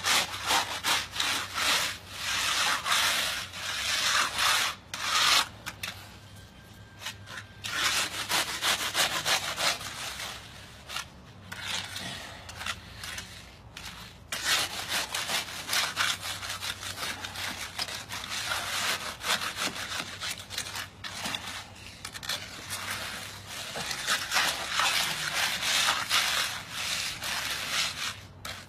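Grooved diamond-design concrete hand float rubbing hard over a concrete surface: a gritty scraping in repeated back-and-forth strokes with a few brief pauses. This is heavy rubbing to repair a rough patch of the slab's finish.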